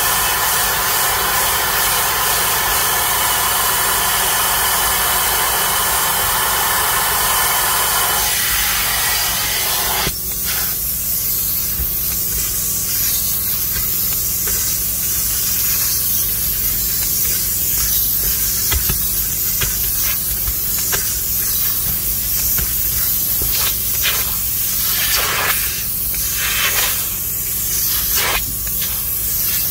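A handheld rotary scrubber brush whirs on a fabric car seat for about the first eight seconds. About ten seconds in it gives way to the hiss of a carpet extractor's upholstery tool spraying and sucking water through the cloth, over a steady low hum, with the hiss surging several times near the end.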